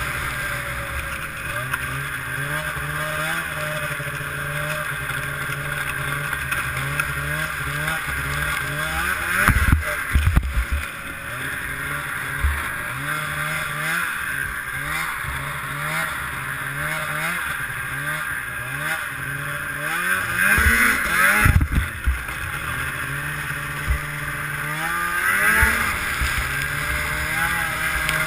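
Ski-Doo MXZ 670 snowmobile's two-stroke Rave engine running through an aftermarket Walker exhaust can as the sled is ridden, its revs rising and falling all the way through. It surges up loudly three times, about ten seconds in, just past twenty seconds, and again near twenty-five seconds.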